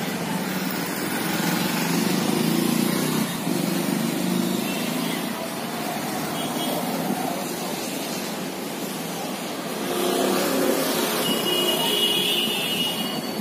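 Street traffic noise, vehicles passing steadily, with a high squealing tone near the end.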